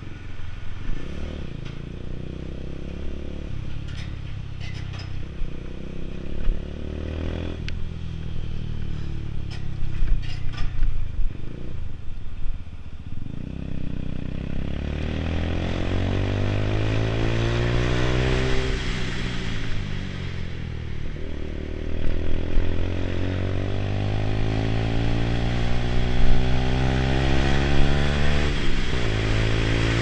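Lexmoto Tempest GT 125's single-cylinder 125 cc four-stroke engine ridden at low, steady revs. About halfway in it pulls away, its pitch climbing, dropping back at a gear change and climbing again. Wind noise rises as speed builds.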